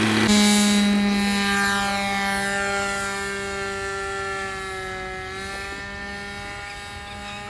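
Radio-controlled model airplane's engine heard in flight: a steady buzzing drone that starts abruptly, dips slightly in pitch about five seconds in, then recovers, and slowly fades as the plane flies off.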